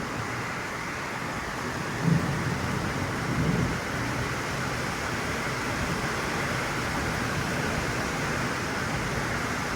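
Rain falling steadily, a light drizzle, with a brief low rumble about two seconds in.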